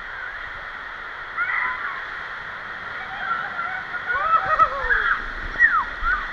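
Water rushing and sloshing under a raft sliding down an enclosed water-slide tube, with riders shrieking and laughing in high rising and falling cries that grow louder from about halfway through as the raft splashes out near the end.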